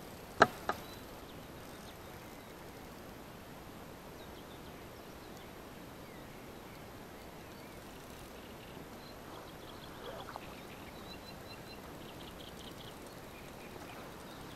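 Two sharp knocks about half a second in, then a quiet outdoor background with faint, short bird calls coming and going, and a brief small splash near the ten-second mark as the hooked catfish stirs at the surface.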